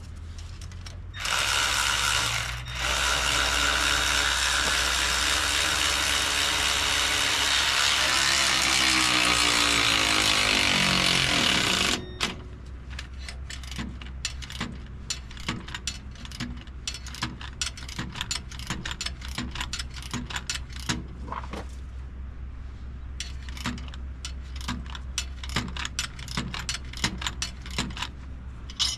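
A loud steady mechanical noise for about ten seconds that cuts off suddenly. Then a hand ratchet clicking in short, irregular runs.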